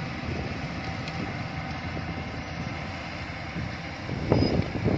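Yanmar AW82V combine harvester running at a distance as it cuts rice, under wind buffeting the microphone, which gusts louder near the end.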